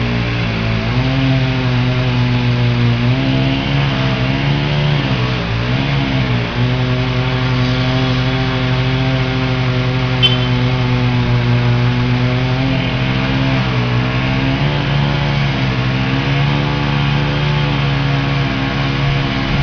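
An engine running steadily, its pitch sagging a few times as it takes load and then recovering. There is a single short click about halfway through.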